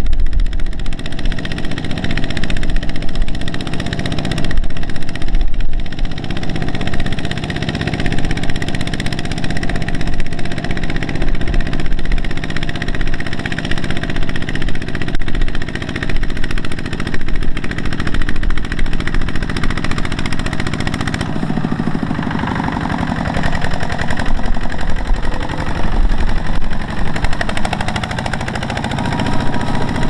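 Single-cylinder diesel engine of a two-wheel walking tractor running hard under load, a fast steady chugging as it hauls a loaded trailer through deep mud. The engine speed sags and then picks up again about two-thirds of the way through.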